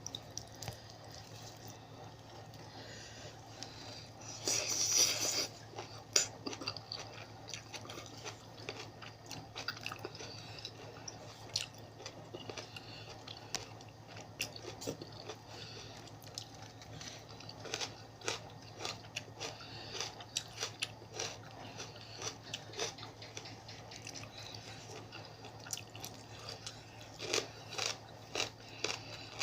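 Close-up eating sounds: someone chewing and crunching mouthfuls of spicy seafood papaya salad and fresh greens, with irregular small crunches and clicks and a louder crunch about five seconds in. A faint steady low hum runs underneath.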